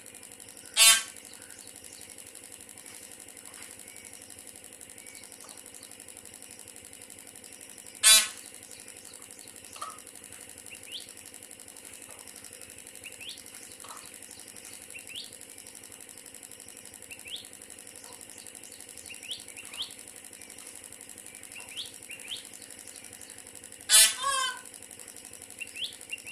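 A peahen gives three short, loud calls: about a second in, about eight seconds in, and near the end, where the call comes in a quick double. Between them come many short, thin, high rising peeps, typical of peachicks.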